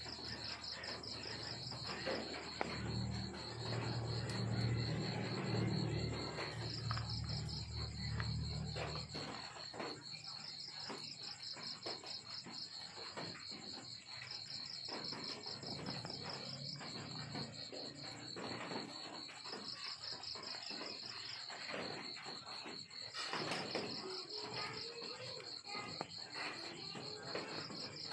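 Crickets chirping: a steady high-pitched trill that swells into pulsing bursts every second or two, over scattered small clicks and rustles. A low hum sounds underneath and stops about nine seconds in.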